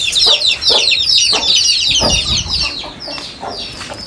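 Chickens clucking amid a dense chatter of short, high bird chirps, which thin out after about three seconds, with a few scattered knocks.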